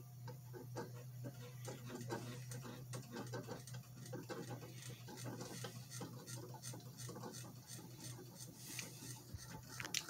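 Worn, wobbly ceiling fan running, its motor humming steadily under a constant irregular clicking and ticking. The fan is very noisy, which its owner puts down to nearly two decades of wear and little maintenance.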